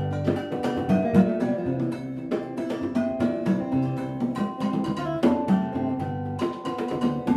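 A small band playing West African Afro-jazz live: a gyil (wooden xylophone) struck with mallets together with acoustic and electric guitars, in a busy, steady rhythm.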